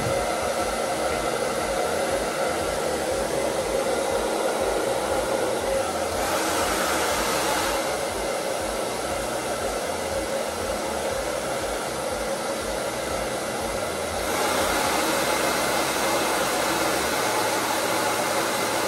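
Handheld electric hair dryer running steadily, a continuous rushing blow with a faint steady whine. It gets louder about fourteen seconds in.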